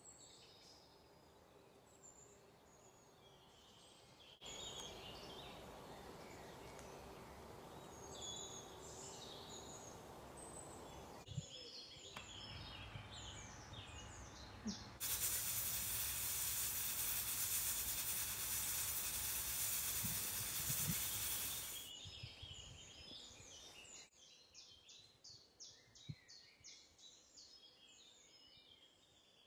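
Birds chirp throughout. About halfway through, an aluminium stovetop pressure cooker gives a loud, steady hiss of venting steam that lasts about seven seconds before it stops.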